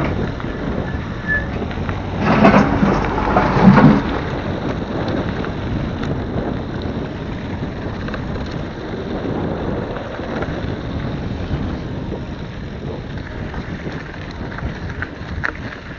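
Wind rushing over the microphone while riding a bicycle along a dusty dirt road, a steady noisy rush. It grows louder for a moment about two to four seconds in.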